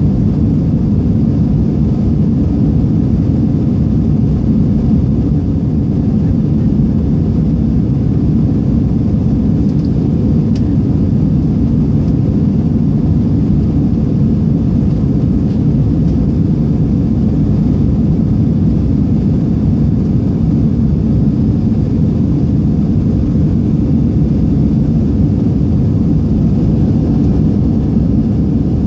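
Steady rumble of a jet airliner's engines and airflow, heard from inside the passenger cabin as the plane climbs after takeoff.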